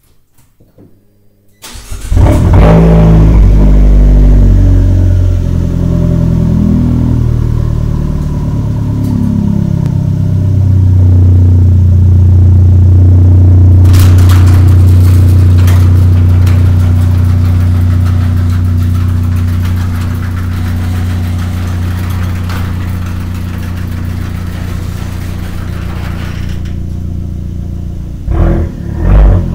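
Fiat 500 Abarth's 1.4-litre turbocharged four-cylinder, heard from right at the exhaust, starts up suddenly about two seconds in and idles. Its pitch shifts for the first several seconds, then holds steady, and a couple of loud bumps come near the end. The recording is loud enough to distort.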